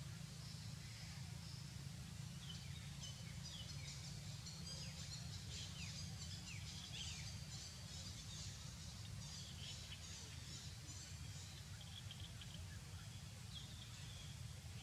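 Faint outdoor ambience: small birds chirping and twittering in quick runs of high notes from about two seconds in until about eleven seconds in, over a steady low rumble.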